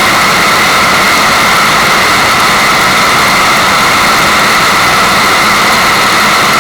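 Loud, steady rushing-water white noise: an even, unchanging hiss with no breaks or separate sounds.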